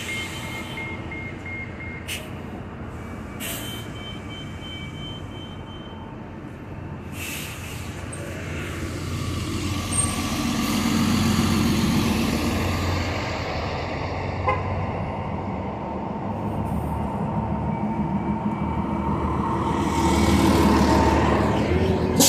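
City street traffic: vehicle engines and tyres rumbling, swelling twice as a bus and other traffic pass, once about ten seconds in and again near the end. Two brief steady high tones sound in the first few seconds.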